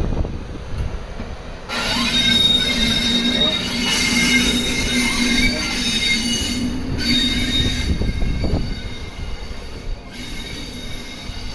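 Wheels of an ED75 electric locomotive squealing against the rails, a loud screech of several steady high tones that starts about two seconds in and eases off near the end, over a low rumble.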